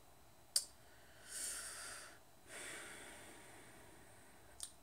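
A woman breathing quietly through her nose: a small mouth click, a breath in, then a longer breath out that slowly fades, and another faint click near the end.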